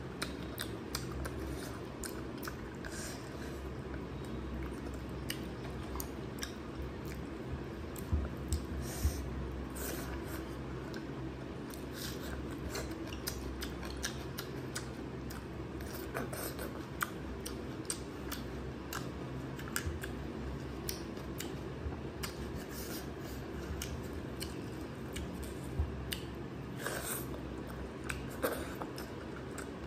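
Close-miked eating sounds: chewing with many short wet mouth clicks and smacks as a person eats rice and mutton curry by hand.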